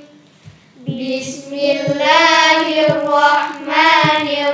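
Young girls' voices singing a slow melodic chant together, with long held notes that glide up and down; it begins about a second in after a short pause.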